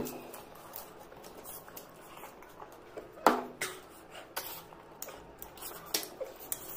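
Close-up eating sounds: scattered wet clicks and squishes from the mouth, the loudest about three seconds in, with a few more near the end.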